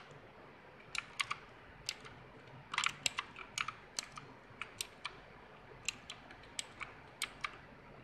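Mechanical keyboard keys being pressed one after another, making scattered sharp clicks about two to three a second, with a quick cluster about three seconds in.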